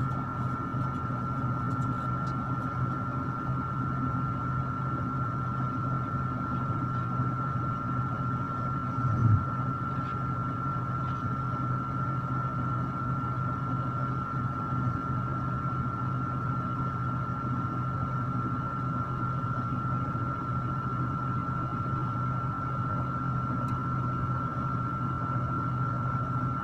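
Electric stand fan running: a steady low hum with a constant high whine over it. A short low thump about nine seconds in.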